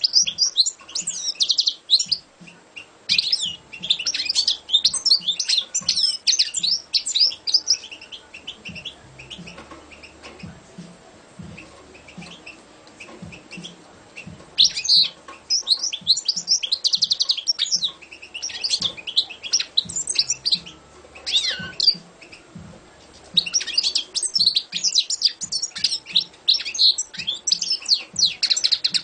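Caged European goldfinch singing: a rapid, twittering song of quick high notes in long runs. There is a quieter stretch of scattered notes in the middle, and full song resumes about halfway through.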